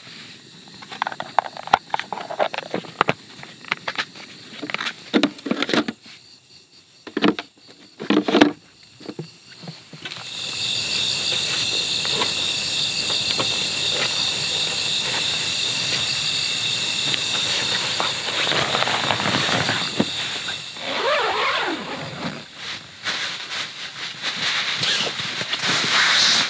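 Clicks and knocks of a plastic food container being handled and closed, then a steady chorus of night insects that comes in suddenly about ten seconds in, then fabric rustling as a sleeping bag is pulled out and handled near the end.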